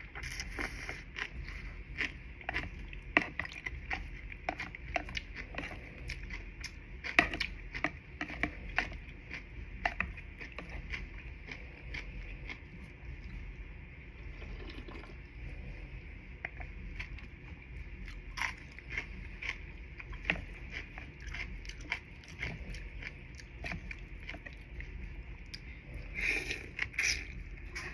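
A person eating close to the microphone: wet chewing with a steady run of small, irregular mouth clicks and smacks, and a louder cluster of them near the end.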